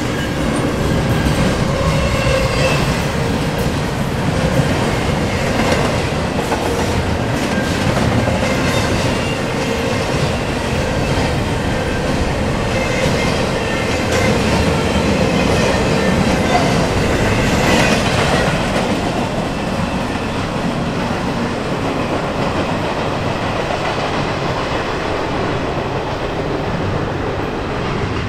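Loaded double-stack intermodal container cars of a freight train rolling past, a steady rumble with the clickety-clack of steel wheels on the rails. It eases slightly over the last several seconds as the end of the train moves away.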